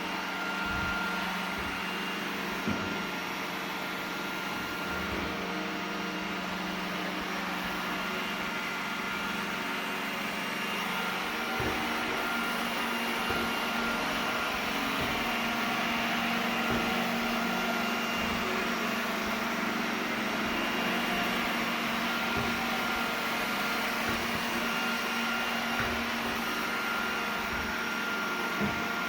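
iRobot Roomba 980 robot vacuum running: a steady hum from its suction fan and brushes, the hum rising a little in pitch a bit over a third of the way in, with occasional light knocks.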